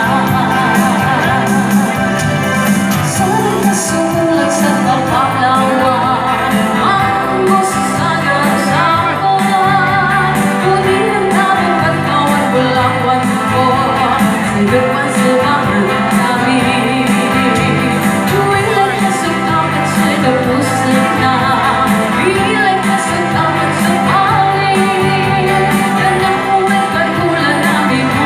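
A song: a singer's voice over band accompaniment with a steady beat.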